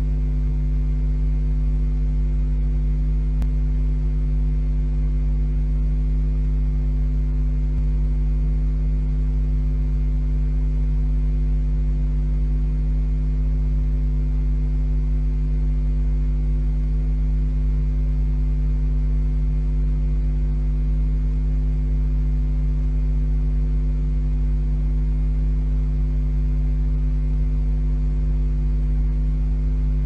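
Steady electrical mains hum: a deep drone with several higher steady tones over it, unchanging throughout, as picked up by a nest camera's audio feed. A faint single click about three and a half seconds in.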